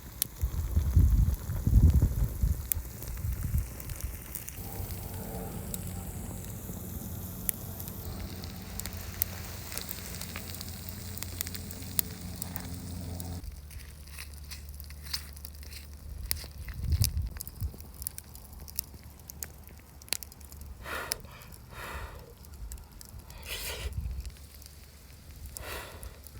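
Wood campfire burning, crackling with scattered pops and clicks. Low rumbling thumps in the first few seconds.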